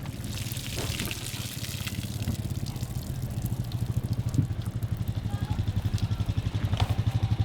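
A motor running with a low, rapidly pulsing hum that grows louder toward the end. A hiss of pouring or trickling water runs through the first couple of seconds.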